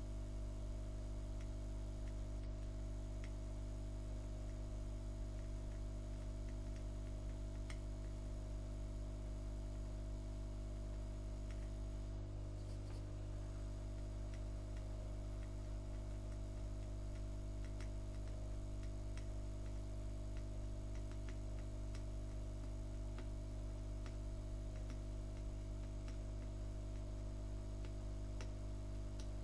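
Steady low electrical hum with a few faint scattered ticks.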